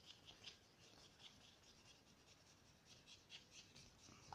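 Faint scratching of a water pen's tip rubbing back and forth over the paper of a water-reveal colouring book, in quick short strokes with a lull in the middle.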